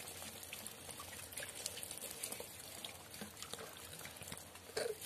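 Rice water poured from a bottle over a person's head, trickling and dripping faintly with small scattered drip ticks.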